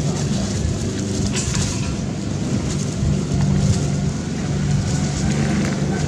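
A motor running steadily, a low even hum with no break.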